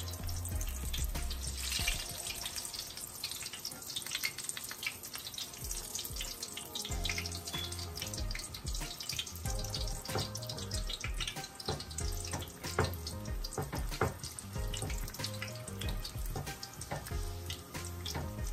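Battered chiles frying in hot oil in a skillet: a steady sizzle with dense crackling and spattering.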